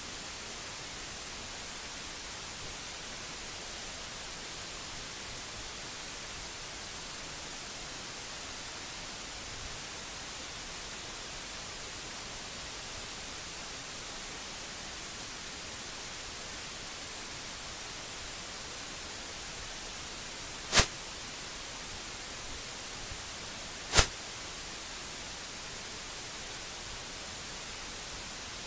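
Steady hiss of an open microphone with no other sound, broken by two sharp clicks about three seconds apart late on.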